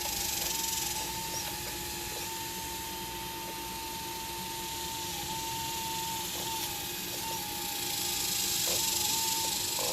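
Hydraulic pump of an RC Liebherr 954 excavator model whining steadily, its pitch dipping briefly several times as the hydraulics take load. A hiss swells near the start and again near the end.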